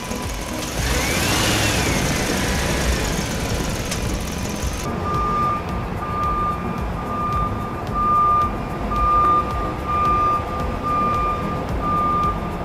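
RC dump truck's electronic sound unit: a hissing rush with a whistle that rises and falls for a few seconds, then a reversing alarm beeping steadily, a little under two beeps a second, as the truck backs up.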